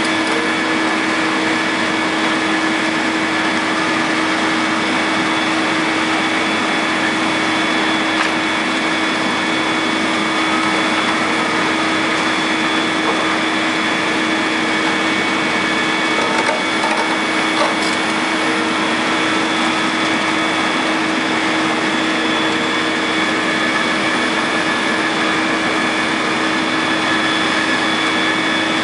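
Caterpillar 330C L excavator's diesel engine and hydraulics running steadily with a constant whine while its grapple works on a concrete bridge, with a few faint knocks from the concrete.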